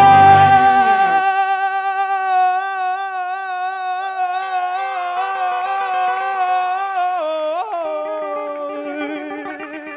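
A man's singing voice holding one long, wavering note at the end of a song, the band's low accompaniment dropping out about a second in. Near the end the note slides down to a lower held note and fades.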